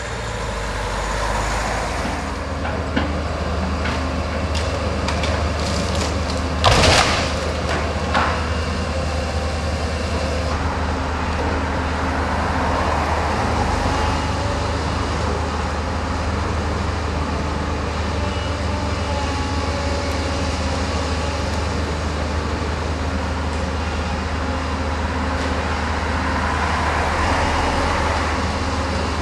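Hydraulic excavator's diesel engine running steadily at demolition work, with a loud crash about seven seconds in and a smaller knock a second or so later.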